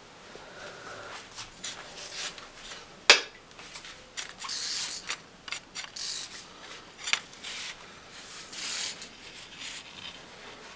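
Clicks and rustling from hands handling fishing tackle: one sharp, loud click about three seconds in, with scattered smaller clicks and several short hissy scrapes.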